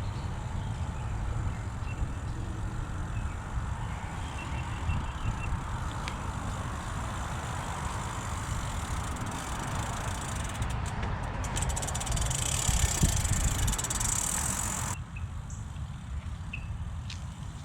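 Wind rumbling on the microphone while a bicycle rolls along a trail, with a hiss that builds and then cuts off suddenly about fifteen seconds in.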